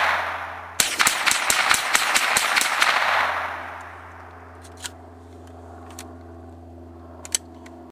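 Lakefield Mossberg semi-automatic .22 LR rifle fired rapidly, about a dozen shots at roughly five a second, starting about a second in and lasting some two seconds. Then a few faint clicks as the rifle's action is handled.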